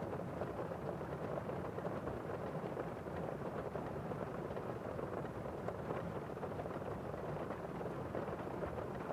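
Steady rain heard as a muffled, even hiss, low and dull, with no single drops standing out.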